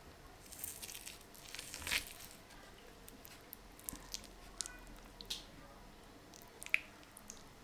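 Faint clicks, scrapes and soft squishes of a plate of butter chicken being handled and a bite of it picked up for tasting, with a louder scrape about two seconds in and a sharp click near the end.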